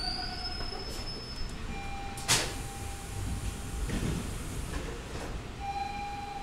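Inside a Bombardier T-1 subway car standing at a station: a steady low rumble from the car, a sharp clunk about two seconds in and a softer one about four seconds in, with brief high tones.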